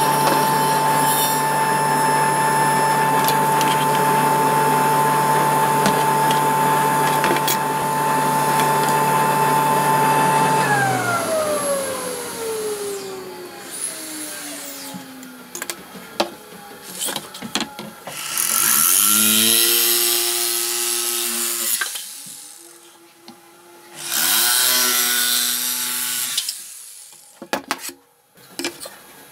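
A power tool's electric motor running at a steady high speed, then switched off about ten seconds in and winding down with a falling whine. Later it starts up twice more, each time whining up to speed for two or three seconds before stopping. Scattered knocks of wood being handled come between the runs.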